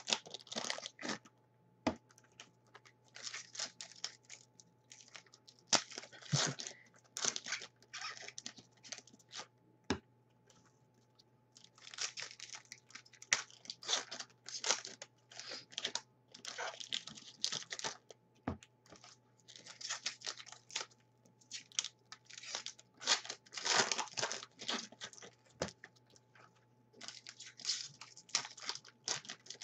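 Football trading-card pack wrappers being torn open and crinkled by hand, in irregular crackly bursts with short pauses between them.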